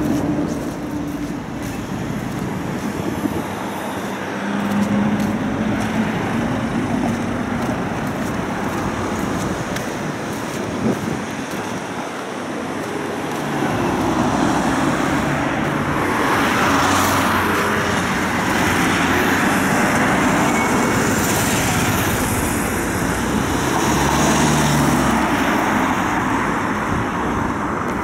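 City street traffic noise: a steady hum of road vehicles. It grows louder in the second half, with vehicles passing close by about halfway through and again near the end.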